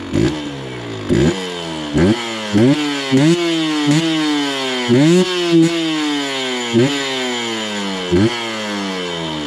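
Yamaha DT 125 X's two-stroke single-cylinder engine revving in repeated short blips of throttle, roughly once a second. Each time the pitch jumps up quickly and then sinks slowly as the throttle rolls off.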